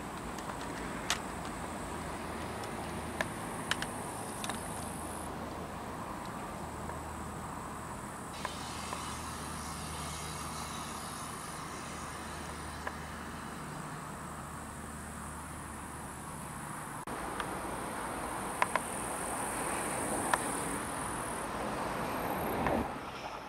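Insects chirring steadily in a grassy field over a low steady hum like a vehicle engine running, with a few sharp clicks scattered through; the sound drops off suddenly near the end.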